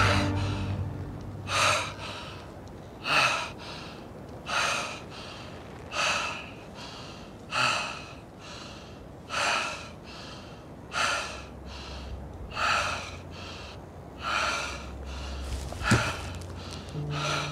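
A person breathing hard, with loud gasping breaths about every one and a half seconds and softer breaths between. A single sharp click near the end.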